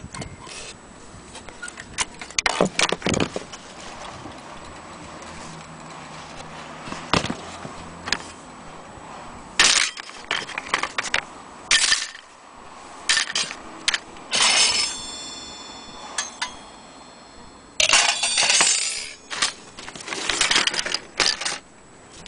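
Handling noise from an old mantle clock's case and movement: irregular clicks, knocks and clatter of wood and metal parts. About halfway through something metal rings briefly and dies away.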